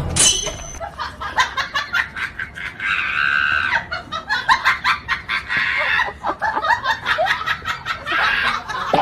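Onlookers laughing hard in quick bursts, with a longer high squeal about three seconds in.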